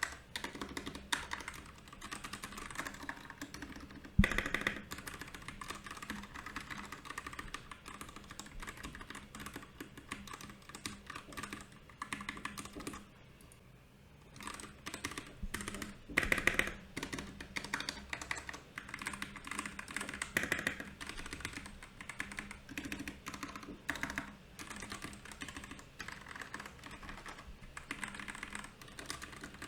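Typing on a Royal Kludge RK68 mechanical keyboard: a steady run of key clicks, with a louder thump about four seconds in and a short pause around the middle.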